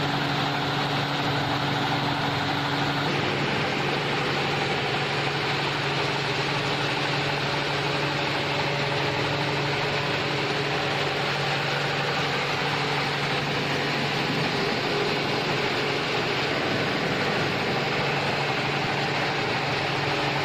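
AMS vertical machining centre running: a steady machine hum over a constant hiss, with a slight change in its tones about three seconds in.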